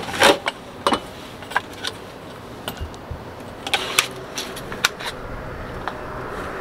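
Scattered clicks and knocks of gear being shifted around in a sailboat's cockpit locker, with the tube sections of a dinghy paddle knocking together as they are pulled out.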